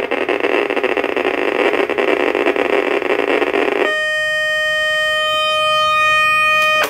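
Geiger counter (Berthold LB 1210 B ratemeter) clicking so fast at a radioactive sample that the clicks run together into a loud crackling buzz. About four seconds in this gives way to a steady high alarm tone, held for about three seconds, which cuts off suddenly.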